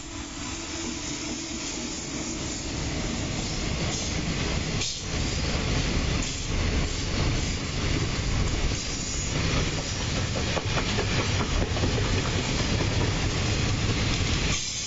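JR Freight EF210 electric locomotive passing with a long train of loaded container wagons. Steel wheels run steadily on the rails, growing louder over the first few seconds as the wagons roll by close at hand.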